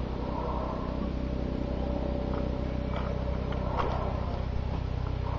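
Tamiya Scania R620 radio-controlled truck running: a steady low drone with a thin steady whine above it, and a couple of short clicks about three and four seconds in.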